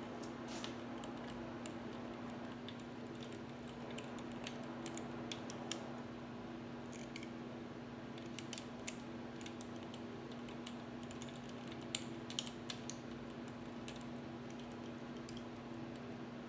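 Socket ratchet clicking in short, irregular runs as a connecting-rod cap nut on a Ford 5.0 V8 is backed off, over a steady low hum.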